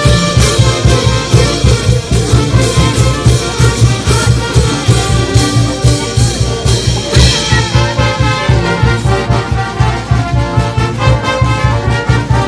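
Live brass band playing: trumpets and trombones carrying the tune over a steady bass beat. The brass lines come through more strongly about seven seconds in.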